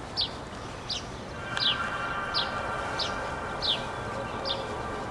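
A bird repeating a short, falling call about every three quarters of a second. A steady held tone of several notes comes in about a second and a half in and continues under the calls.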